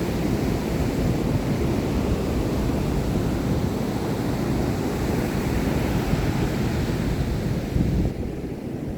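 Ocean surf washing onto the beach, with wind rumbling on the microphone. A little before the end the hiss thins out and the sound drops slightly.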